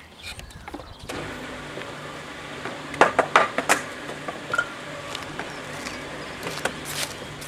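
The DS-33 double-saw firewood processor's electric motor starting about a second in and then running with a steady hum, with a few sharp clicks and knocks around the middle and again near the end.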